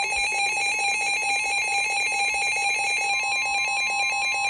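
Emergency weather alert tone: a loud, steady electronic tone with a fast warbling two-pitch beep over it, sounding for a special marine warning.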